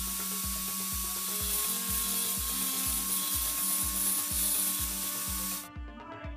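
Angle grinder with a thin cut-off disc cutting through a metal rod: a steady, high hiss with a whine that cuts off suddenly near the end. Background music with a steady beat runs underneath.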